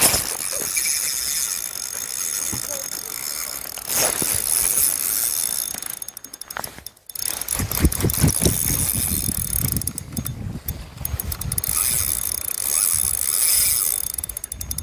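Spinning reel being cranked in a lure retrieve: the gears whir steadily, with stretches of rapid fine clicking.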